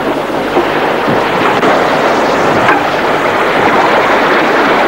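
Steady rushing of wind and sea aboard a sailing yacht under way, with wind buffeting the microphone.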